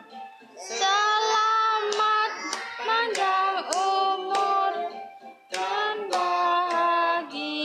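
Children singing a song in held notes, with hand claps along.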